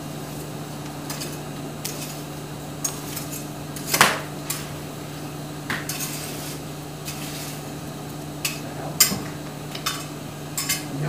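Iron rod and tools clinking and scraping in a coal forge fire as the fire is worked, in irregular sharp metallic clicks, the loudest about 4 seconds and 9 seconds in, over a steady low hum.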